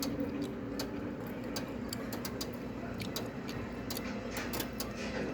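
18-pound commercial washing machine humming steadily, with irregular short clicks throughout.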